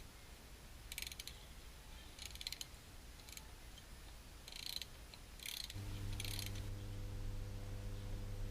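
Ratchet wrench clicking in several short bursts, tightening the drive shaft bolts on a VW bay-window bus. A steady low hum starts about six seconds in.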